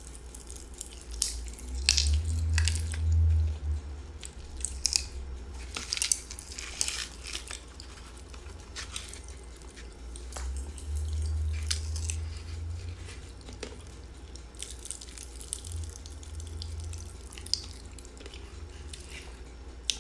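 Pop Rocks popping candy crackling and popping in the mouth close to the microphone, with chewing: many sharp, irregular little pops. A low rumble swells up about two seconds in and again around eleven seconds in.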